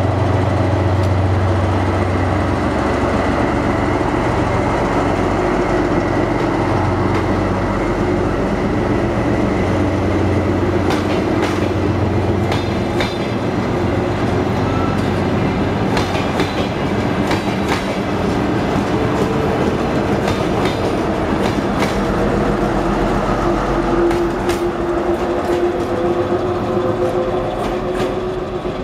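DR1A diesel multiple unit departing and passing close by. A deep diesel engine hum dominates the start. Then the carriages roll past with wheels clicking over the rail joints, and a faint rising whine as it picks up speed, fading near the end as it pulls away.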